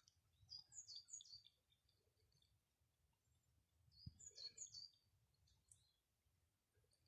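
Faint bird chirps: a short run of quick, high, falling notes about half a second in and again about four seconds in, with a soft low knock near the second run.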